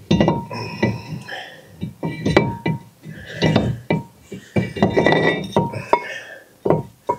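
New drilled-and-slotted brake rotor clinking against the wheel hub and studs as it is worked onto the hub: a series of sharp metal knocks, several leaving a short bell-like ring.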